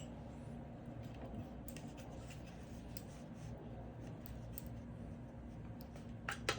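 Faint scattered clicks and taps of small parts being handled and fitted into slots, with a sharper double click near the end, over a faint steady low hum.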